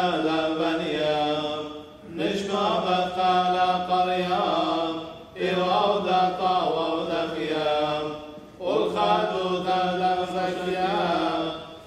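Men's voices chanting the Assyrian Church of the East liturgy, in sung phrases of about three seconds, each separated by a short breath.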